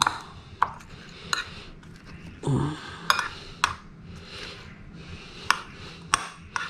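Metal spoon clinking against cut-glass bowls while scooping a shredded green mango and tomato salad: about seven sharp, separate clinks spread through the stretch.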